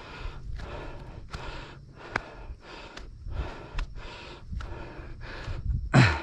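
A person breathing hard from the effort of climbing a steep hill: quick, rhythmic in-and-out panting, two to three breaths a second, with one louder breath near the end.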